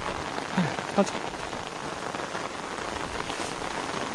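Heavy rain falling steadily, an even hiss of drops.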